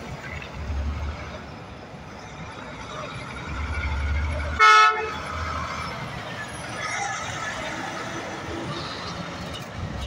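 Semi tractor's diesel engine rumbling as it pulls a loaded flatbed trailer past. About halfway through comes a single short air horn toot, the loudest sound.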